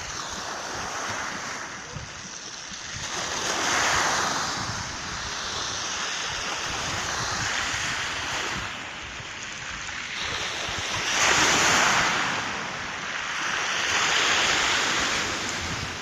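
Black Sea waves breaking and washing up a pebble shingle beach, swelling in three louder surges, with wind buffeting the microphone.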